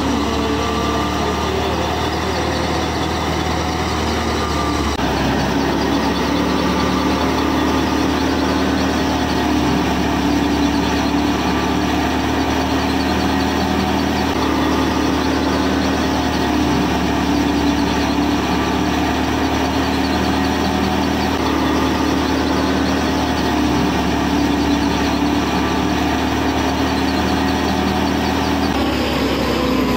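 Miniature model thresher running, driven by a toy tractor's small motor through a drive shaft: a steady mechanical hum that shifts slightly in tone about five seconds in.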